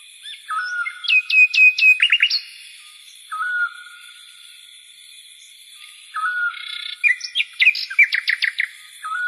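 A songbird singing in repeated phrases: short whistled notes, twice breaking into a quick run of sharp, slurred high notes.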